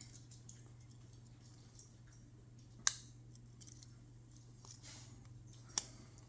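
Tools of a 58 mm Victorinox Swiss Army knife mod snapping into place on their backsprings: two sharp metallic clicks about three seconds apart, with a few lighter clicks between, over a faint steady low hum.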